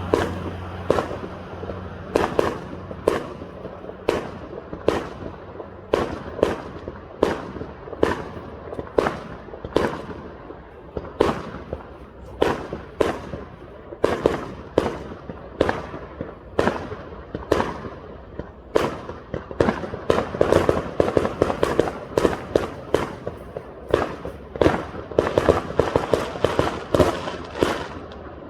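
Fireworks going off: a long string of sharp bangs, about one or two a second, coming in quicker volleys in the last third.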